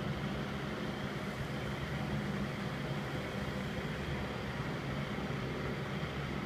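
Cata axial bathroom exhaust fan running steadily: an even rush of moving air over a low motor hum.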